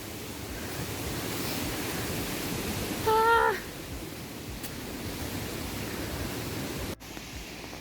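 Steady rushing roar of McLean Falls, a waterfall, heard close by, with a brief break near the end.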